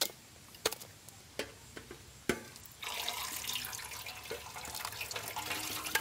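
Four sharp clinks of steel pots and utensils, then from about three seconds in a steady splashing pour: pomegranate juice running through steel sieves into a large steel pot.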